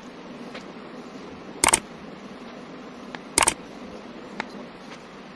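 Knife blade slicing down through a block of kinetic sand: two short, sharp crunches about 1.7 seconds apart as each cut goes through, with faint ticks between them over a steady low hiss.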